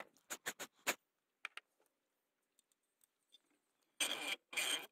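A small metal hand tool scraping against a metal plate clamped in a bench vise. There are several quick short scrapes in the first second and a couple more shortly after. Near the end come two longer, louder rasping strokes as the tool is worked in the plate's threaded hole.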